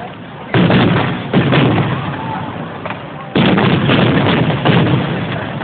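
Aerial firework shells bursting overhead: several sudden booms, the loudest a little past three seconds in, each trailing off in a rolling echo.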